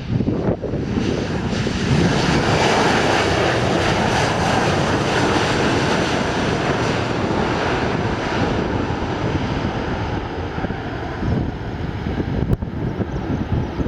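Jet engine noise of a landing Airbus A320-200 with CFM56 engines: a loud, steady roar that swells about a second in, holds for several seconds, then eases off.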